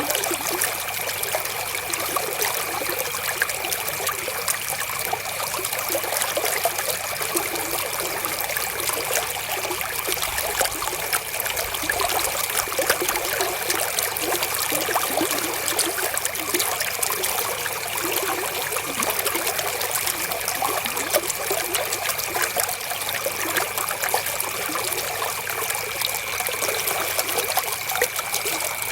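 River water flowing, a steady, even rush with many small fine crackles.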